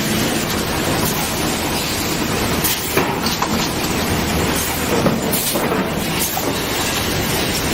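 Sawmill machinery running: a steady, dense mechanical noise with a few knocks about three and five seconds in.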